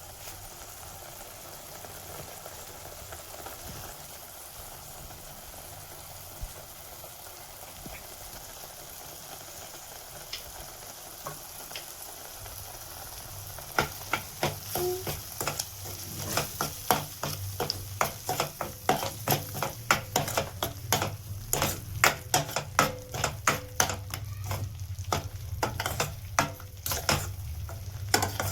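Food sizzling as it fries in a pan, a steady hiss at first. About halfway through, stirring begins: a utensil scraping and clicking rapidly against the pan over the sizzle.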